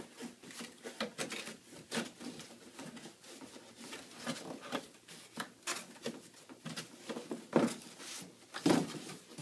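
Corrugated cardboard being folded and handled: irregular rustling, scraping and creasing of the box sides and flaps, with two louder bumps near the end.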